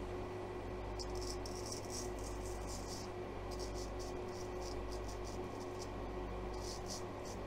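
Straight razor scraping through week-old stubble in a run of short, quick strokes, over the steady hum of a fan.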